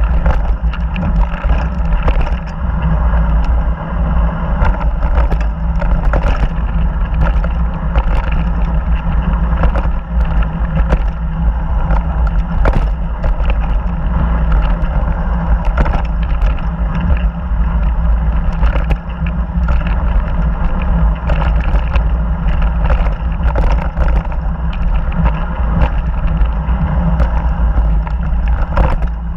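Mountain bike descending a dirt and rock trail at speed: a steady, loud rush of wind buffeting the camera microphone, over the rumble of tyres on dirt and frequent sharp clicks and rattles from the bike over rocks and roots.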